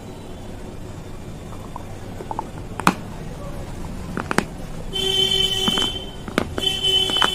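Small clay pots being chewed close to the microphone, with a few sharp crunches. A vehicle horn honks twice in the background near the end, each honk about a second long and louder than the crunching.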